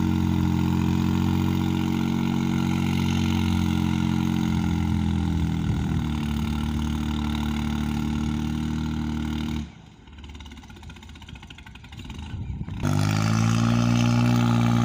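New Holland 3600-2 tractor's diesel engine running steadily under load, pulling a seven-tine cultivator. About ten seconds in the engine sound drops away to a faint hum for about three seconds, then comes back at full level.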